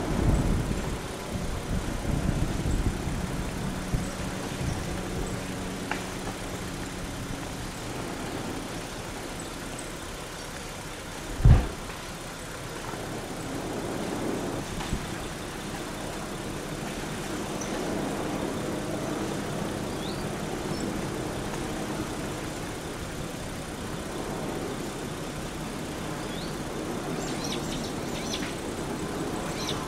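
Aa lava flow advancing against a car, with flames at the car's front end, giving a steady noise. One loud thump comes about a third of the way in.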